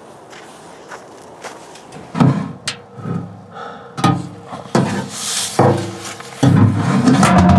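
Faint footsteps, then a roadside mailbox opened and an envelope pulled out and handled, heard from close inside the mailbox: a run of loud knocks and rattles with paper rustling, densest near the end.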